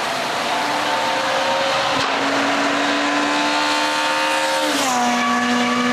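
Škoda Fabia rally car engine at full throttle, its pitch climbing steadily, then dropping sharply about three-quarters of the way through as the driver shifts up a gear and keeps accelerating.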